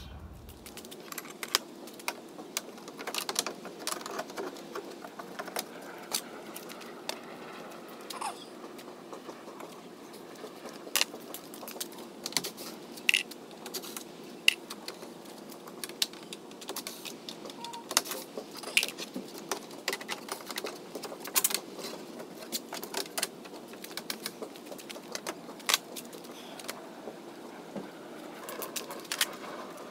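Irregular sharp clicks and metallic clinks of hands working on a wooden gate's metal strap hinge hardware, over a steady low background hum.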